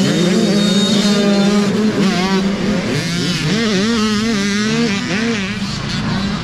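Several youth dirt bike engines revving hard together, their pitches rising and falling as the riders accelerate and shift while pulling away from the start.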